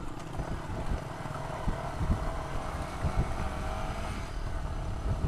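Trail motorcycle engine running at low speed up a rough stone macadam track, with irregular low knocks as the bike jolts over the loose rocks.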